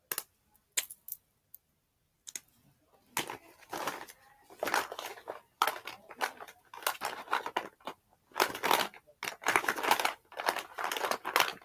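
Hands rummaging through things in a bag: irregular bursts of rustling and crinkling after a few light clicks near the start.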